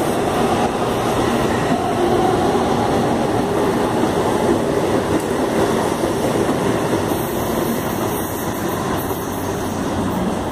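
Stainless-steel CPTM electric commuter train running along the platform, with the steady noise of its wheels on the rails.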